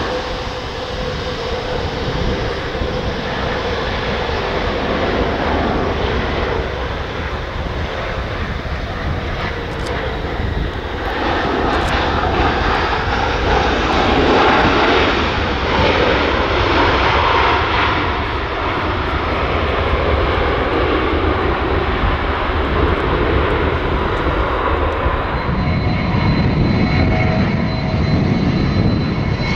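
Boeing 737-800 jet engines on landing: a continuous engine noise that swells about eleven seconds in as the airliner rolls out on the runway with spoilers up, typical of reverse thrust. Near the end it gives way to a Boeing 767 freighter taxiing, a heavier steady rumble with a high whine.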